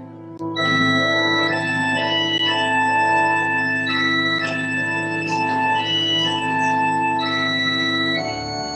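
Organ music: sustained chords whose notes change about once a second, getting louder about half a second in, with the bass note dropping to a lower one near the end.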